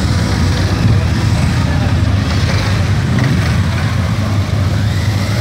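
A procession of motorcycles riding slowly past, their engines running steadily at low revs with no revving.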